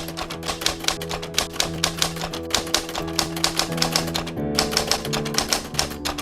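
Background music: held chords under a fast, even ticking beat of sharp clicks, with a change of chord a little over four seconds in.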